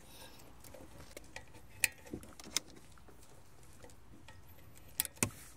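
Plastic wiring-harness connectors clicking as they are plugged into the back of a car radio head unit: several short, sharp clicks, with two close together near the end.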